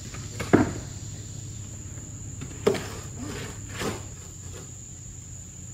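A steady high-pitched drone of summer insects, broken by three hard knocks: a loud one about half a second in, then two more a few seconds later.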